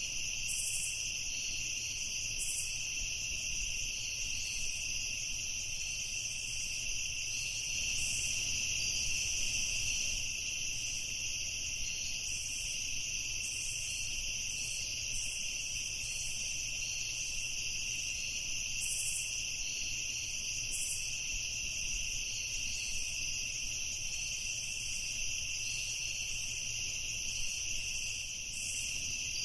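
Night insect chorus of crickets trilling steadily, several high pitches overlapping without a break.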